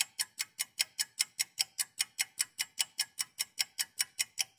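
Ticking-clock sound effect: fast, even ticks at about five a second.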